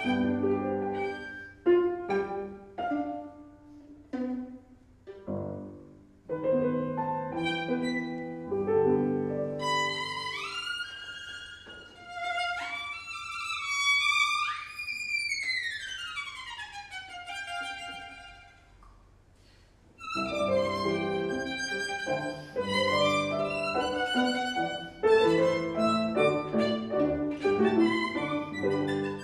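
Violin and piano playing a contemporary classical duo. Midway the violin slides up in pitch several times, then glides down in one long slide, followed by a brief hush before violin and piano resume together.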